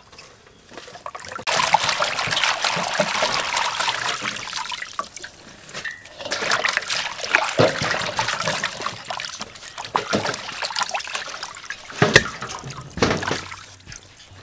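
Hands washing leafy greens and onions in a stainless steel basin of water: splashing and swishing in bursts, with a few sharp knocks.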